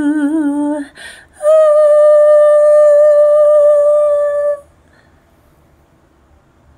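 A woman's unaccompanied voice ends a sung phrase on a note with vibrato, takes a breath, then holds a steady, higher note for about three seconds before stopping abruptly.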